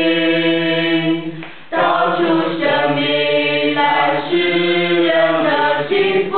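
A choir singing a slow song in Chinese in long held notes, with a brief drop for a breath about a second and a half in.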